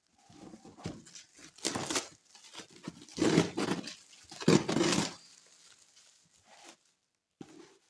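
Plastic packaging being handled and torn open, crinkling and tearing in irregular rustles, loudest in two stretches in the middle.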